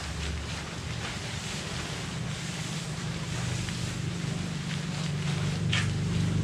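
Polyester tent flysheet rustling and flapping in irregular swishes as it is pulled and spread over the tent, over a steady low rumble.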